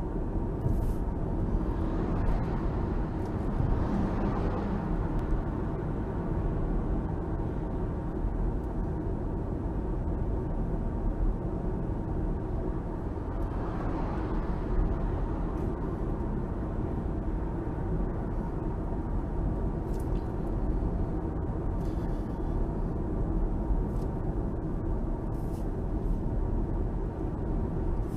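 Steady road and engine rumble heard inside a car cruising at about 40 mph, swelling briefly around four and fourteen seconds in.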